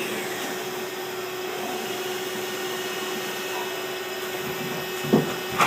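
CNC lathe running with a steady whooshing machine noise and a steady hum. There are two sharp knocks about a second apart near the end.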